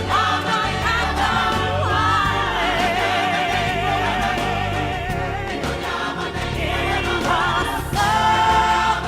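Background music: a choir and a lead voice singing, with a long held, wavering note in the middle, over a steady low accompaniment.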